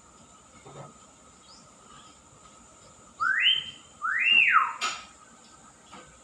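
Caged myna bird giving two loud whistles a little over three seconds in, each sliding up and then back down, about a second apart.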